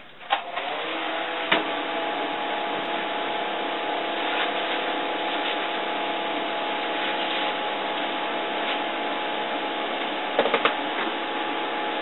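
Small electric fan switched on and running steadily, blowing air down into an insulated ice box: a steady rush of air with a faint motor hum. A click comes about a second and a half in, and a few light knocks come near the end.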